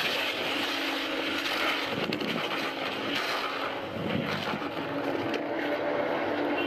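Steady vehicle and traffic noise with a low engine hum, picked up by the camera mounted on the handlebars of a crashed motorcycle.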